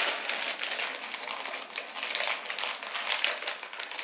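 Paper packaging being picked at, torn and crinkled open by hand: a rapid, irregular run of small crackles and rips.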